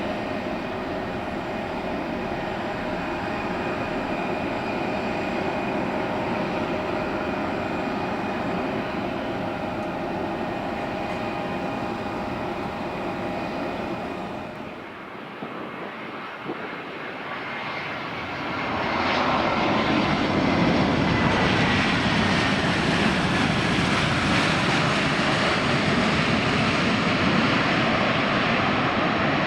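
Airplane engines running, with a steady whine of several held tones. About two-thirds in the sound drops briefly, then comes back louder and fuller, with a whine that slowly falls in pitch.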